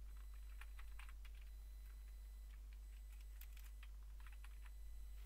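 Computer keyboard typing in a few short runs of key clicks, faint, over a steady low electrical hum.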